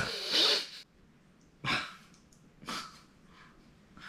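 A man's short, breathy huffs, with stifled laughter and strain, spaced about a second apart; the loudest comes at the very start. He is forcing them out through the pain of a sore, freshly vaccinated arm.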